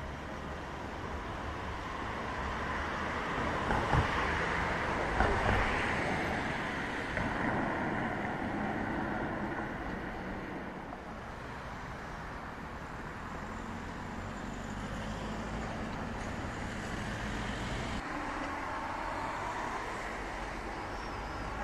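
Electric multiple-unit passenger train passing beneath on a double-track line: its rolling noise swells to the loudest about four to seven seconds in, with two sharp knocks from the wheels, then fades away. Near the end, road traffic is heard.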